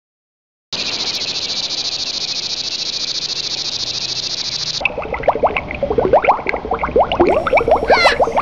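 Chorus of frogs and insects. A steady, high, fast-pulsing trill starts about a second in. About five seconds in, many quick rising chirping calls take over.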